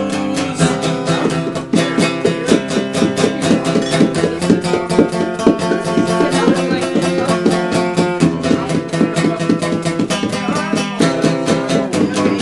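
Instrumental break of a punk song: guitar strummed in rapid, even strokes over sustained chords, with no singing.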